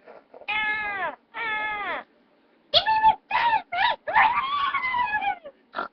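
A series of meows: two drawn-out meows falling in pitch, then a quick run of short meows and one longer, wavering meow.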